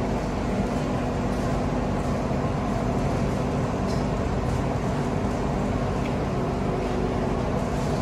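Steady low rumble with a faint, even hum underneath.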